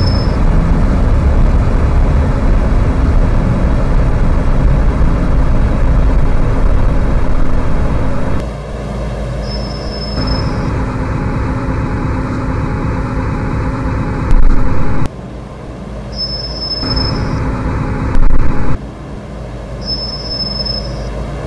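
MTR M-Train electric multiple unit running, with steady rumble and a low drone from the motors and wheels. Short high beeps sound four times, and two brief very loud bursts come about 14 and 18 seconds in.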